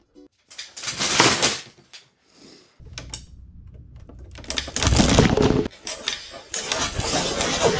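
Wooden rafters of a scale-model yurt roof creaking and cracking as they give way under about 215 pounds, the roof twisting in a torsion failure. The crackling comes in several bursts, the loudest about a second in and about five seconds in.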